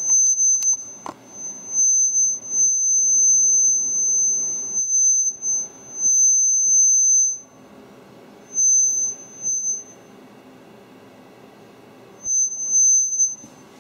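Lenovo ThinkPad laptop's speakers giving off a loud, high-pitched squeal over a rushing hiss, cutting in and out several times and dropping to a low hum for a few seconds past the middle. This is audio feedback from the laptop's microphone through its own speakers.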